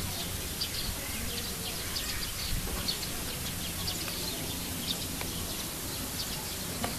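Small birds chirping in many short, high notes over a steady low hum of background noise.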